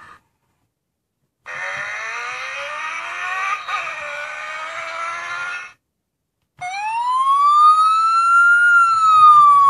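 Electronic sound effects from a Tonka fire-rescue toy vehicle: about four seconds of a rising engine-revving sound, a brief pause, then a siren wail that climbs and falls once.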